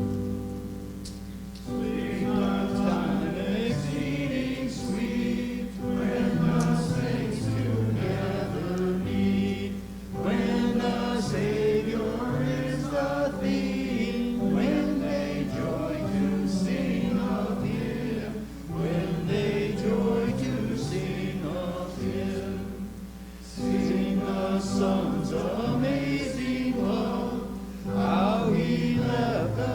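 Congregation singing a hymn with keyboard accompaniment. The singing comes in about two seconds in, after the keyboard's opening notes, and goes on in phrases with short breaks between lines.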